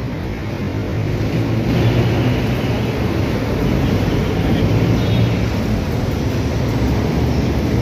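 Steady city street traffic noise, with vehicle engines running.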